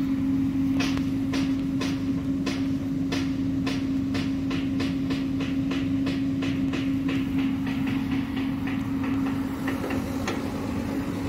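Delivery truck's engine running at a steady pitch under a series of sharp clacks that come faster and fainter, from about two a second to about four a second.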